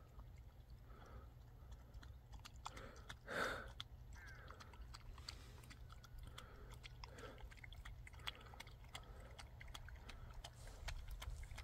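A Jindo-mix dog eating from a metal frying pan: faint chewing and crunching with many small clicks, and one louder brief noise about three and a half seconds in.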